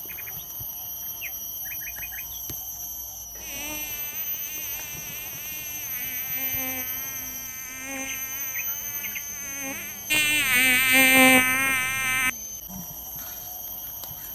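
An insect buzzing with a wavering, pitched drone that starts about three seconds in. It turns much louder for a couple of seconds near the end, then cuts off sharply.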